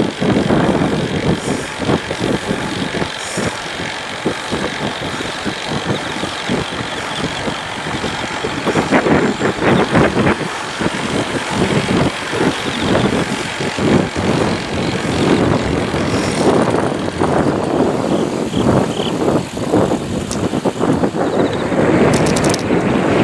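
Wind buffeting the microphone of a camera moving along a path, an uneven, gusting rumble, with a faint steady high whine through the first half.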